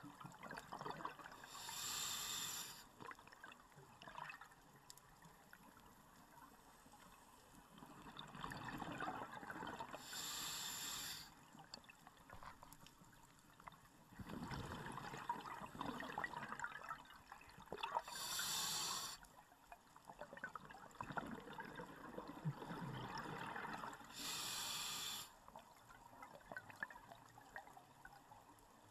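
Scuba diver breathing through a regulator underwater: four short hisses of inhalation, each following a longer bubbling rush of exhaled air, in a slow cycle about every seven to eight seconds.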